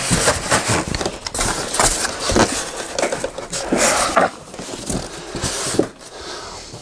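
Cardboard box and styrofoam packing being handled and cleared away: rustling and scraping with many short knocks.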